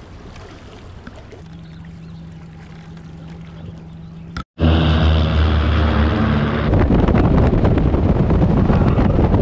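Bass boat's outboard motor running slowly with a steady low hum. About four and a half seconds in it breaks off briefly and comes back much louder, the boat now running fast, with a loud rushing noise of wind and water taking over.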